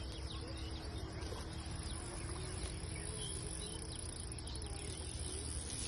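Steady outdoor ambience: a continuous high insect drone over a low rumble, with a few faint, short chirps.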